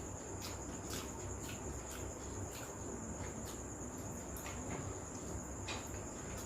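Steady high-pitched insect chirring, with faint scattered clicks.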